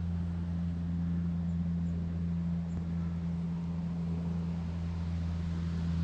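A low, steady drone holding one pitch, typical of an engine idling, over a faint hiss of outdoor air.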